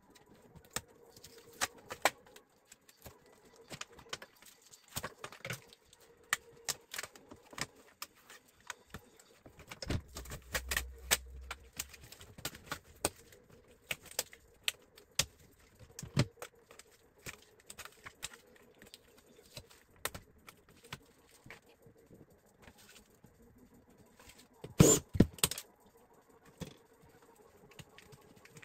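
Scattered clicks, taps and light knocks of hands handling plastic speaker boxes, cables and tape on the metal chassis of an opened LED TV, with a louder burst of clatter near the end.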